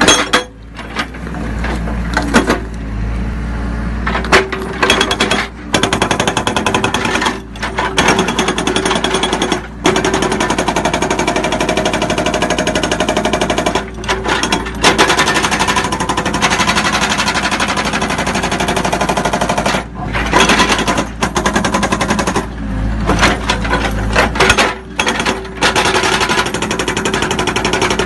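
Hammer SB 400 hydraulic rock breaker hammering rock with rapid, evenly spaced blows of its chisel. The blows come in runs of a few seconds each, broken by short pauses as the breaker is lifted and repositioned.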